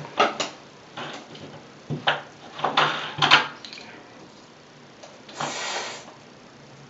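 Handling noises of hair-care products: a run of short clicks and knocks, then a longer rustling hiss a little past five seconds in.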